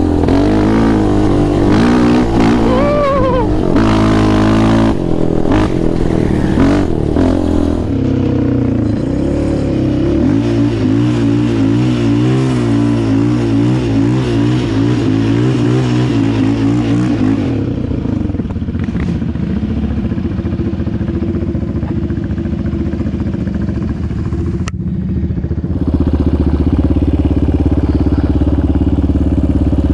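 Sport quad's engine running while riding: revving up and down through the first several seconds, then holding a steadier, wavering pitch, and settling to a lower, even run for the second half.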